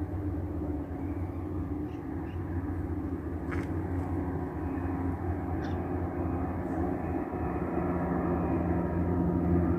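Turboprop engines of a de Havilland Canada Dash 8 Q300 taking off: a steady low propeller drone that slowly grows louder.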